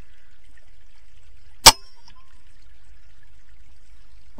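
A single air rifle shot about a second and a half in: one short, sharp crack with a brief ring after it.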